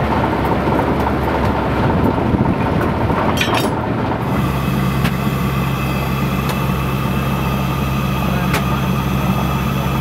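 A heavy engine running steadily. About four seconds in, the sound changes abruptly to a steadier low hum.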